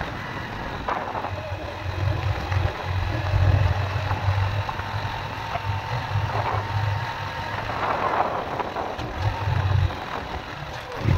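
Small motorcycle engine running as the bike is ridden, a low exhaust thrum that swells and eases with the throttle.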